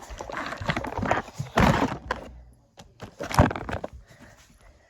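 Buckets being carried and set down: irregular knocks and clatter, with a longer scraping rustle about a second and a half in and a sharp knock a little past three seconds.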